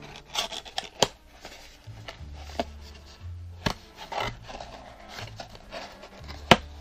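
Paperboard box being handled and opened: rubbing and scraping of cardboard as the box slides and its flaps are pulled open, with several sharp taps and clicks, the loudest near the end.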